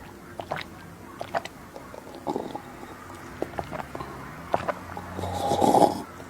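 Close-miked eating sounds: scattered soft mouth clicks and chewing of a soft dessert, with a louder stretch of mouth noise a little after five seconds in.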